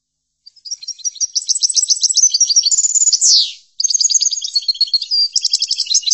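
European goldfinch singing: a long run of fast, liquid twittering trills and chirps that starts about half a second in, ends on a falling note and breaks off briefly a little past the middle, then carries on.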